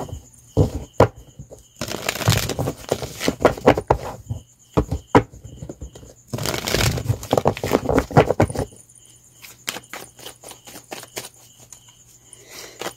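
Deck of tarot cards being shuffled by hand: runs of rapid flicking and slapping of cards, two longer bouts about two and seven seconds in, then only a few light taps.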